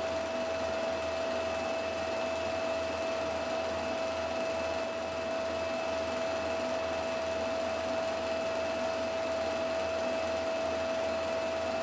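Film projector running: a steady mechanical whir with a constant high-pitched hum.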